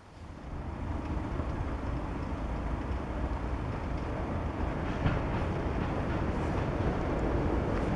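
A train approaching on the railway line, its rumble growing steadily louder from about half a second in.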